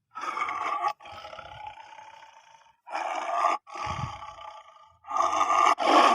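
A wild animal's loud, harsh roaring calls, three of them about two and a half seconds apart, each trailing off into a quieter, fading call.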